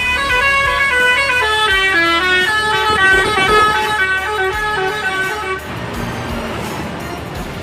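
Bus telolet horn, a multi-tone musical air horn, playing a quick stepped melody for about five and a half seconds before cutting off, leaving a low rumble of engine noise.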